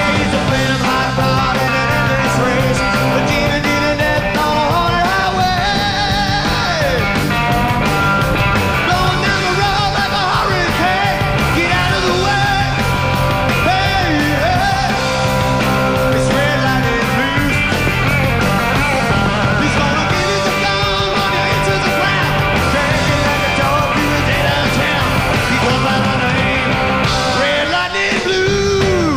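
Live rock and roll band music, with electric guitar lines bending up and down in pitch.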